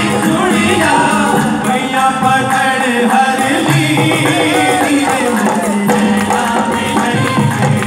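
Live qawwali: a group of male voices singing with hand-drum accompaniment.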